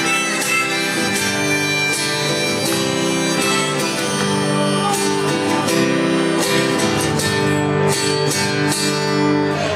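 Live acoustic guitar being strummed in an instrumental passage of a rock song, regular strokes under held melody notes.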